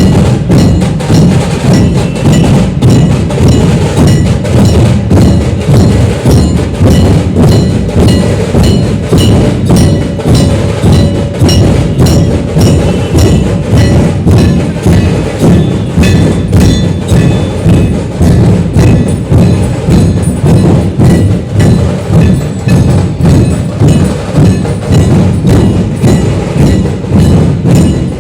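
Drums played in a fast, continuous rhythm: dense strikes with a deep drum body and bright, ringing clicks on top.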